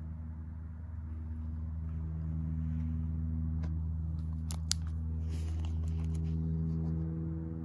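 Plastic photo-album sleeves crinkling and clicking as a ring-binder page is turned, with one sharp click near the middle, over a steady low hum.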